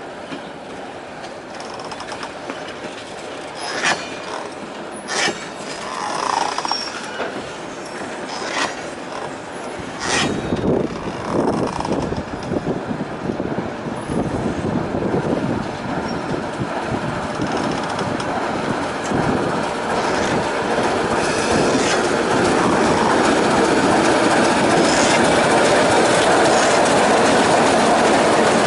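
Diesel locomotive and passenger coaches at trackside: a few sharp metallic knocks in the first third, then the locomotive's engine rumble growing steadily louder as it comes close, levelling off near the end.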